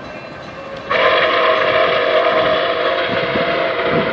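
Whistle of an approaching Nickel Plate Road steam locomotive: a long blast of several tones sounding together starts suddenly about a second in and holds steady.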